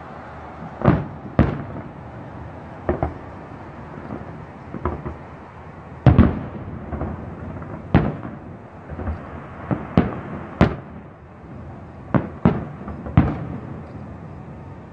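Aerial firework shells bursting: about a dozen sharp booms at irregular intervals, each trailing off in a short echo.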